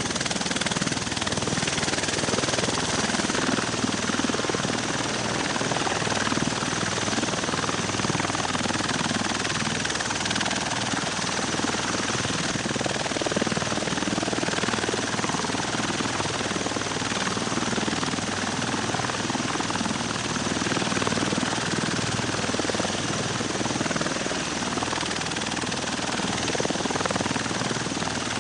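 V-22 Osprey tiltrotor's proprotors and turboshaft engines running, a loud, steady, dense rotor and turbine noise that holds even throughout.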